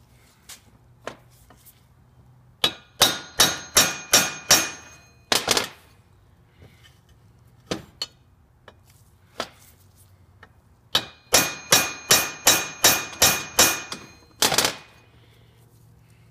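Hammer blows on a valve guide driver tool, driving a new exhaust valve guide into a Briggs and Stratton engine's preheated aluminium block. Two runs of ringing metal strikes, about three a second, each run eight to ten blows long, the second starting after a pause of several seconds, with a few light taps between.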